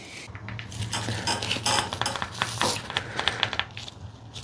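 Light metallic clicks, taps and scrapes of steel engine parts being handled and fitted onto the crankshaft nose, a quick irregular series.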